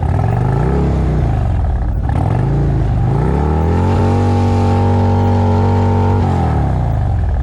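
Motorcycle engine revving. It rises and falls twice, climbs to a higher pitch held steady for about two seconds, then drops back down near the end.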